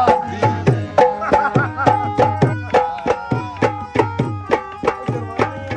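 Live folk music: a hand drum in the tabla style plays a quick, steady rhythm with bass strokes that bend in pitch, while a keyboard holds sustained notes.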